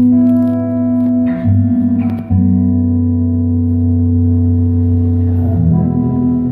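Guitar music: sustained chords with plucked notes, the chord changing a few times, and no voice.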